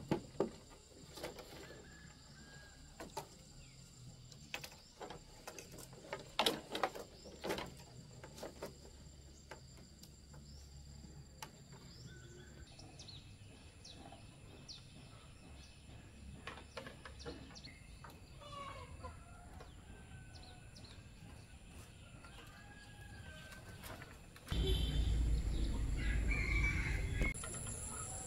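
Chickens clucking and small birds chirping, with scattered knocks and steady high-pitched tones behind them. About 24 seconds in, a much louder low noise starts, and it eases off near the end.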